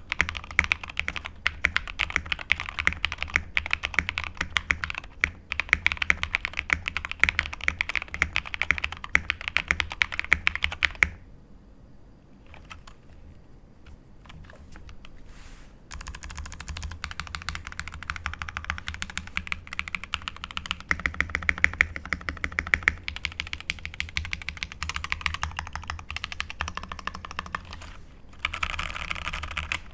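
Fast typing on a Keydous NJ68 custom mechanical keyboard with 205g0-lubed Cobalt POM switches in a stainless steel half plate, dampened with IXPE switch foam: rapid, closely spaced keystrokes that stop for about five seconds near the middle, then resume.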